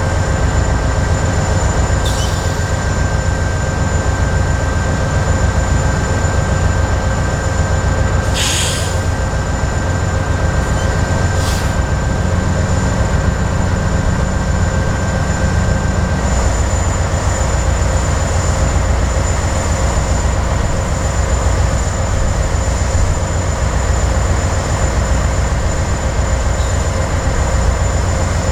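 Diesel-hauled coal train on the move: a steady heavy low rumble with a thin steady high whine over it. A few short high-pitched bursts come through, about two, eight and eleven seconds in.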